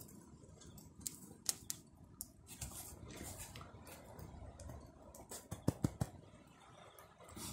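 Wood campfire crackling, with sharp, irregular pops and snaps over a low hiss; the loudest pops come in a pair about six seconds in.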